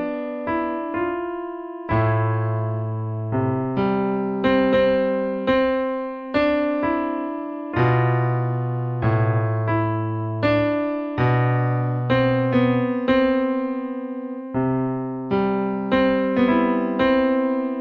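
Background music played on electric piano: a gentle melody of struck notes that ring and fade, with low bass notes underneath.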